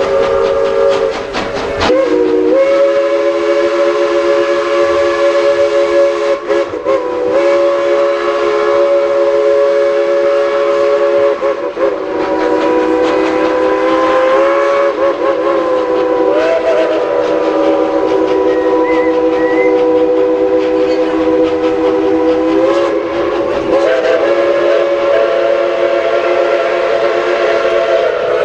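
Steam locomotive chime whistle blown in one long, loud, drawn-out blast, a chord of several tones held throughout, with the pitch sagging and shifting briefly a few times as the whistle valve is worked.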